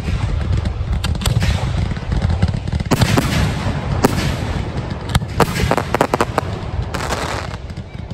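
Fireworks firing from ground launchers in quick succession: a steady run of deep launch thumps under a constant crackle and hiss, with sharp loud cracks about three and four seconds in and a quick cluster of them between five and six seconds.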